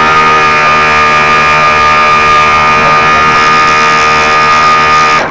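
Radio-controlled model boat's motor running steadily at speed, a loud buzzing whine picked up right beside it on board; it cuts off suddenly at the very end.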